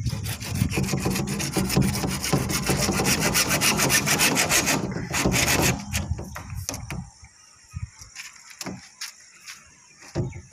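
Fast, rasping scraping on a PVC pipe in rapid even strokes for about six seconds, then a few scattered knocks and clicks as the pipe is handled.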